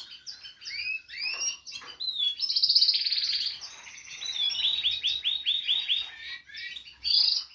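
Small songbirds singing and chirping: varied quick chirps, a loud fast trill about halfway in, then a run of about eight repeated sweeping whistled notes, about five a second. The song cuts off suddenly at the end.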